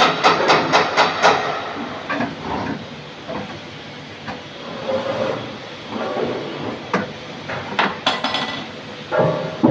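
Hammer blows on sheet metal, a quick run of about four strikes a second for the first second or so, then scattered metal knocks and clanks, one near the end ringing briefly.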